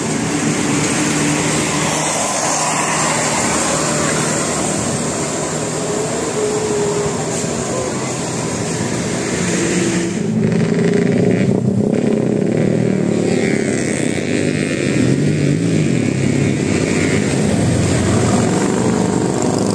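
Passing road traffic: vehicle engines and tyres running steadily. It gets louder from about halfway through.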